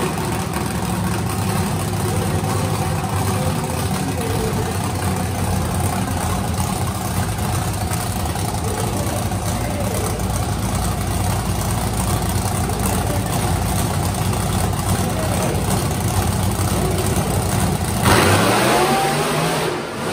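Monster truck engines idling with a steady low drone while the trucks wait at the start line. About 18 seconds in they go to full throttle for the drag-race launch, and the engine note climbs sharply.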